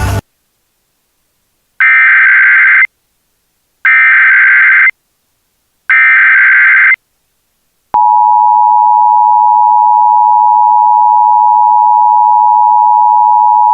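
Emergency Alert System tones: three one-second bursts of SAME digital header data, about two seconds apart, then, about eight seconds in, the steady two-tone EAS attention signal starts and holds, loud.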